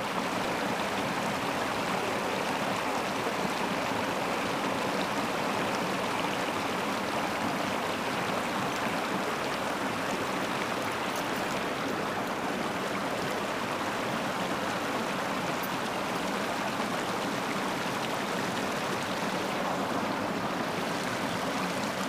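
Shallow creek water rushing steadily over rock ledges and small cascades.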